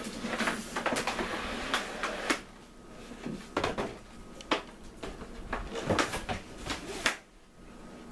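Cardboard box flaps and a clear plastic package being handled and pulled out of the box: rustling and crinkling at first, then a series of sharp clicks and knocks.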